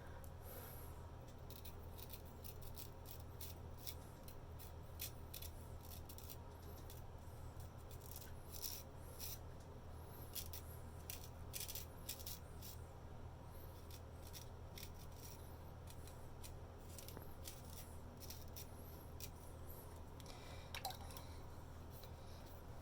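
Antique straight razor scraping through hair in short strokes: a run of irregular crisp scratches.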